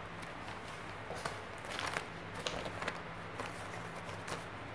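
Quiet room tone with a steady low electrical hum and a few faint, scattered clicks and rustles.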